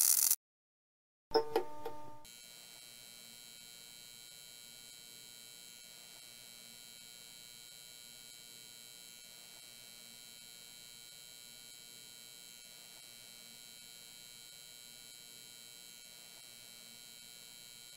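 End-screen sound effects: a short burst of noise at the very start, a second of silence, then a brief ringing ding about a second and a half in. After that comes a faint steady electric buzz and hum with a thin high whine.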